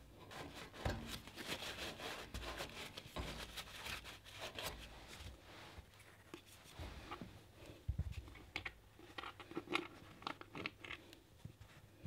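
Faint scratchy clicking of hand work on a brass radiator lockshield valve: fingers turning the collar on the valve stem to stop it leaking, thickest over the first few seconds, then scattered clicks as the plastic valve cap is handled.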